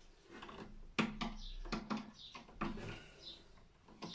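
Light clicks and scrapes of a screwdriver and copper wire working at a consumer unit's neutral bar as a neutral conductor is fitted into its terminal. The sharpest click comes about a second in.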